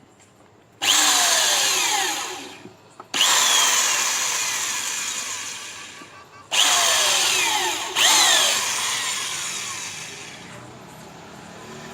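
Electric drill running in four bursts while drilling holes in an electrical main board. Each burst starts suddenly with a whine that falls in pitch, then fades away slowly; the last one tails off near the end.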